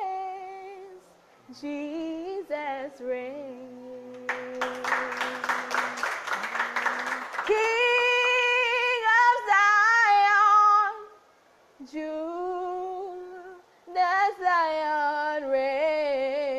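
A woman singing unaccompanied in long, wavering held notes with no clear words, phrase by phrase with short breaks between. About four seconds in, a rough, noisy stretch lies over a held low note for some three seconds.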